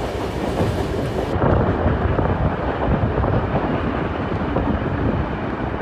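Wind buffeting a microphone held out of a moving passenger carriage's window, over the steady low rumble of the train running along the track.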